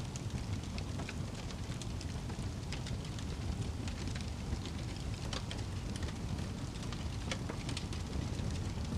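Wood fire burning in a fireplace: a steady low rumble of flames with scattered sharp crackles and pops from the burning logs.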